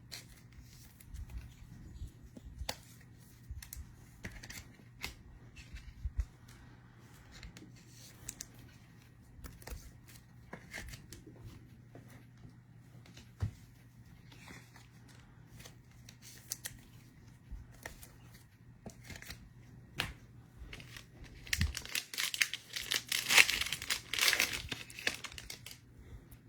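Foil trading-card pack wrapper being torn open and crinkled, loudest near the end, after a long stretch of faint card-handling clicks and rustles.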